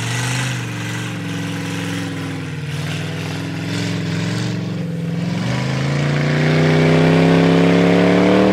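Ford F-150 pickup's engine pulling under load while it drags a car through a wet field by a rope. The engine note holds steady at first, then rises in pitch and gets louder over the last three seconds as it is given more throttle.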